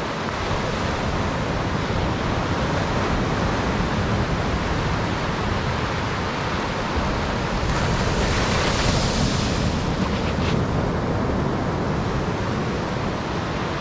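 Sea surf washing onto a beach as a steady rush, with one wave swelling louder about eight seconds in, and wind on the microphone.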